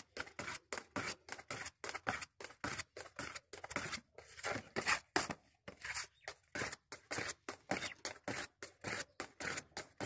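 Spreader scraping and folding car body filler (putty) on a mixing board in quick, even back-and-forth strokes, about four or five a second: the filler being mixed to an even paste before it is spread.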